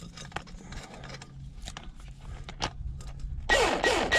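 Light clicks and taps of tool handling, then, about three and a half seconds in, loud rapid ratchet-wrench strokes with a metallic squeak as the 11/16 ratchet tightens a tailpipe expander's bolt.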